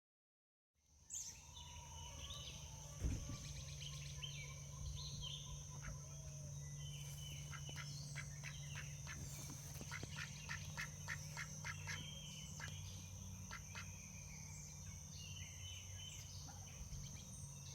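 Birds calling, with runs of quick repeated calls in the middle, over a steady high-pitched tone and a low hum.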